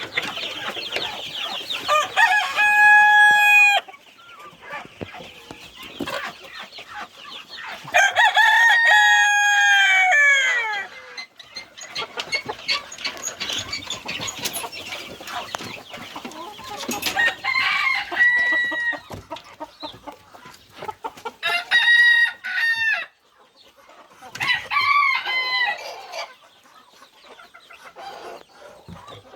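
Roosters crowing one after another, about five loud crows, over the steady clucking of a flock of chickens.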